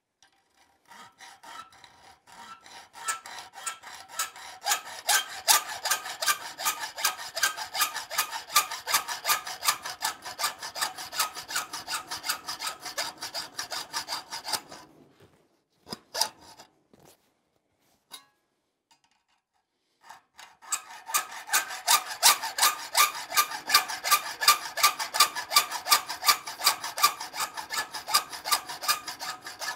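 Hacksaw cutting through a steel hinge leaf in quick, even back-and-forth strokes, the metal ringing with each stroke. The sawing stops for about five seconds midway, with a few clicks, then starts again.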